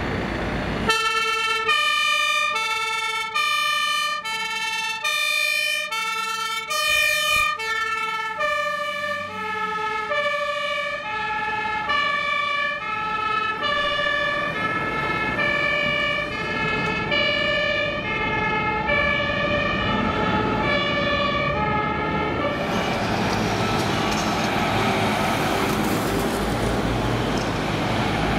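German two-tone emergency siren (Martinshorn) on a Mercedes Sprinter fire-service van, alternating between a low and a high tone about a fourth apart, each held for roughly two-thirds of a second. It starts about a second in and is loud while the van approaches. Its pitch drops around eight seconds in as the van passes, and it fades away over the next fourteen seconds; after that comes the close, steady noise of a heavy truck's engine and tyres.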